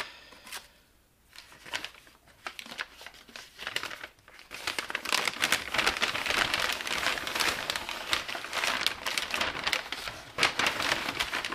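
Stiff brown kraft packing paper rustling and crinkling as it is pulled out of a cardboard box and unfolded. It begins with scattered quiet crackles, then becomes louder, continuous crinkling from about four seconds in.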